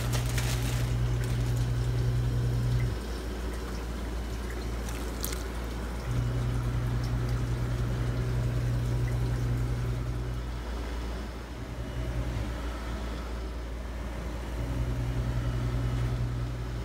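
A pot of red grapes boiling in water, with a steady bubbling hiss. Under it a strong low hum cuts out and comes back several times.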